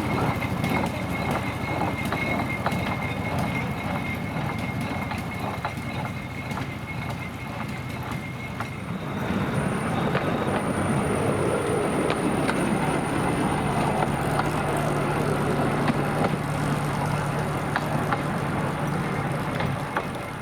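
Narrow-gauge forest railway train running, with many sharp clicks and rattles over a steady mechanical noise. A thin high tone sounds through the first half. The sound changes about nine seconds in, and a low steady hum then runs through most of the rest.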